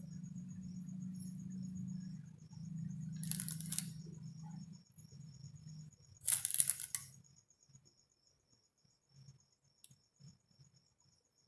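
Two short rustling scrapes as baked nankhatai biscuits are lifted from a paper-lined tin and set down on a ceramic plate, the second a little louder, over a low hum that fades out about halfway through.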